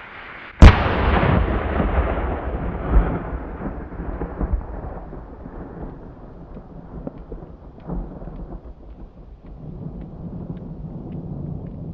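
Thunderking rocket exploding: one sharp, very loud bang about half a second in, followed by a long rolling echo that rumbles on and slowly fades over several seconds, with a few further swells of echo along the way.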